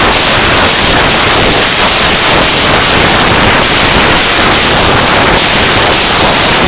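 Noise music: a loud, dense wall of hissing, grainy noise spread across the whole range, with no pitch or beat, held steady.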